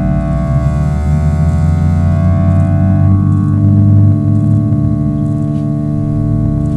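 Electronic feedback drone: many steady tones held together like a sustained organ chord over a deep low hum. It swells slightly about four seconds in.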